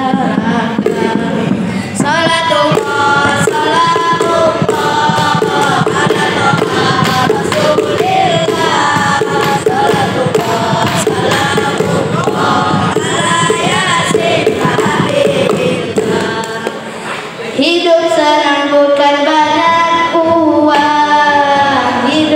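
A group of boys singing a nasyid together into microphones. The singing drops briefly about three-quarters of the way through, then comes back louder.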